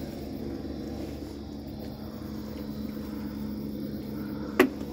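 Steady low background hum with one sharp knock near the end.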